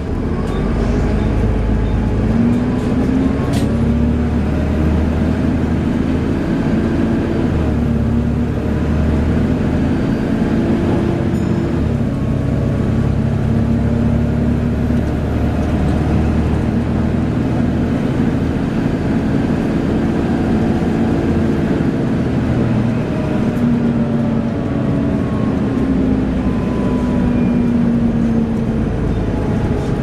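Volvo B7TL double-decker bus heard from inside the saloon, its six-cylinder diesel engine pulling hard: the engine note rises, then drops back at each gear change, several times over, with a steady low rumble underneath.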